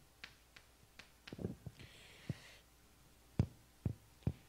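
Chalk writing on a chalkboard: a scattered series of sharp ticks and taps as the chalk strikes the board, with a short, faint scratchy stretch about two seconds in.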